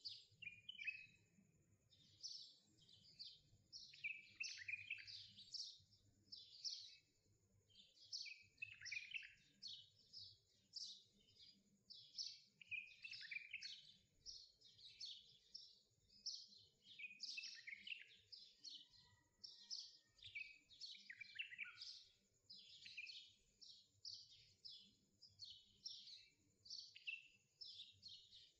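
Quiet, continuous chirping birdsong: many short, quick chirps and trills, most falling in pitch, with almost no gaps.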